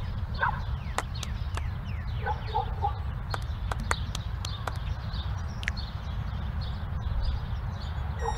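A low steady rumble with scattered sharp clicks and short chirping animal calls, some in quick pairs, others falling in pitch.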